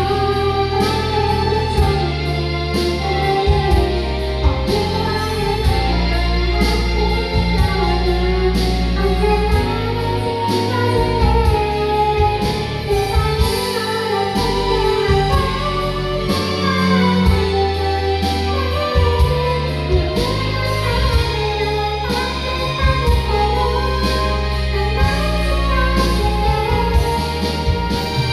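A woman singing a Korean pop ballad over a karaoke machine's backing track of bass, keyboard and guitar, with the machine's key raised high.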